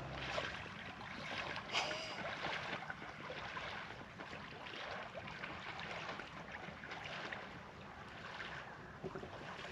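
Steady outdoor wind and water ambience, a soft even rush with no distinct event standing out.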